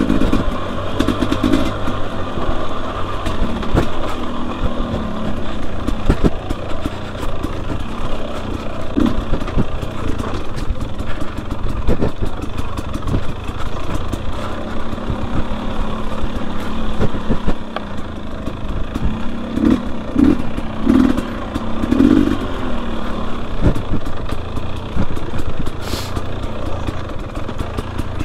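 Two-stroke single-cylinder engine of a Husqvarna TE250i dirt bike under way on rough trail, its revs rising and falling with several louder bursts of throttle. Frequent short knocks and clatter run through it.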